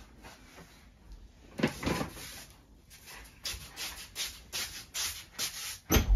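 Clothing rustle and a couple of thumps as a person gets up from an office chair, then quick footsteps, about three a second, ending in a heavy thud at a door near the end.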